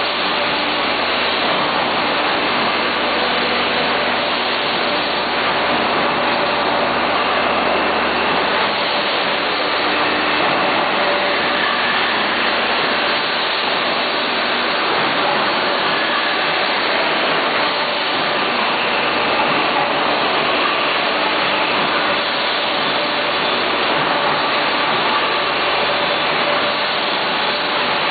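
PS foam food-container production machinery running: a steady mechanical din with a few faint humming tones.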